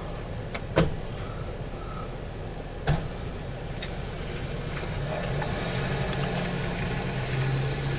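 A vehicle engine running steadily, its low hum growing louder in the last few seconds. Two sharp knocks come through, one about a second in and one about three seconds in.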